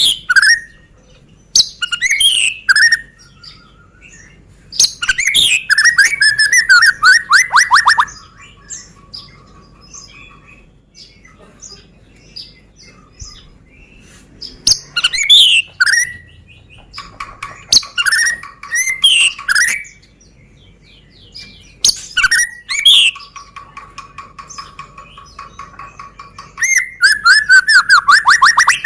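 White-rumped shama (murai batu) singing loudly in bursts of varied song, a few seconds apart. Each burst mixes sweeping whistles and fast rattling trills, and one rattling trill runs to the end.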